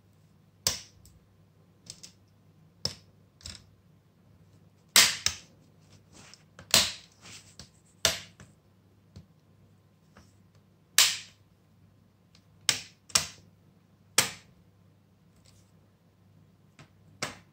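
Plastic snap clips of a ThinkPad X240 screen bezel clicking into place as the bezel is pressed down around the lid, a dozen or so sharp clicks at irregular intervals.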